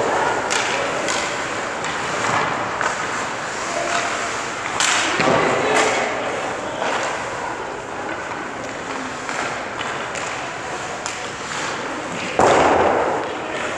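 Hockey skate blades scraping on rink ice, with two louder scrapes about a second long, one about five seconds in and one near the end, like skaters stopping.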